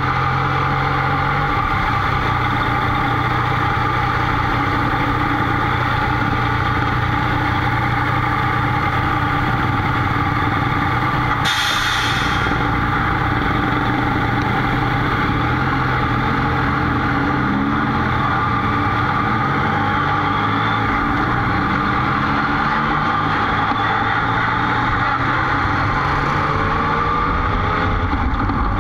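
Motorcycle engine running at low revs in slow traffic, picked up from the rider's position, its pitch gliding up and down in the second half as it pulls away. A brief hiss sounds about twelve seconds in.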